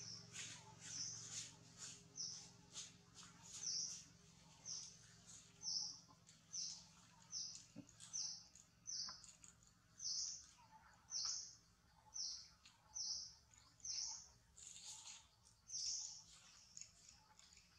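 A bird chirping: short, high-pitched chirps repeated about once a second.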